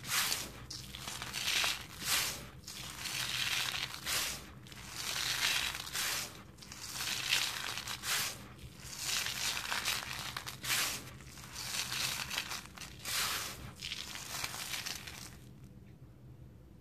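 Hands working through a layer of dry sand-and-cement powder, making a gritty, rasping crunch with each stroke at about one stroke a second. The strokes stop near the end.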